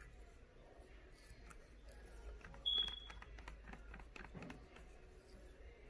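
Faint clicks and scrapes of a wooden stir stick against a plastic cup as resin is mixed, with one short, high-pitched beep about two and a half seconds in.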